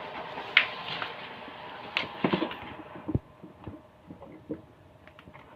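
Sliding gate opener motor running on test with a steady mechanical noise and a few sharp clicks, then stopping about three seconds in.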